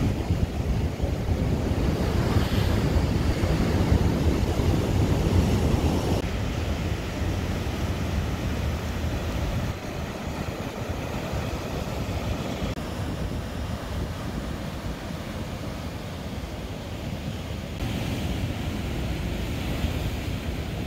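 Heavy surf crashing and churning against rocks below a seawall, with wind buffeting the microphone. It is loudest in the first few seconds, drops about ten seconds in, and swells again near the end.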